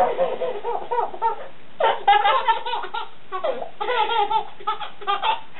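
Baby girl belly-laughing in four bursts of quick, gasping giggles with short pauses between, set off by her mother's sneeze.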